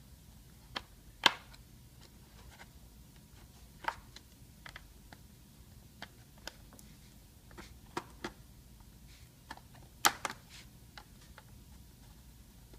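Plastic screen bezel of an HP Pavilion 15 laptop being pried off with a credit card: scattered sharp clicks and snaps as its clips pop loose, the loudest about a second in and again about ten seconds in.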